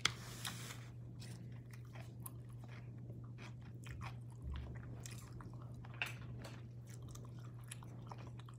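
Close-up eating sounds: a person chewing food with scattered soft mouth clicks and smacks, over a steady low electrical hum.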